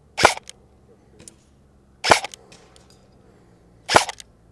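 Arcturus AT-AK12 electric airsoft rifle firing three single shots about two seconds apart, each sharp crack followed by a few fainter clicks.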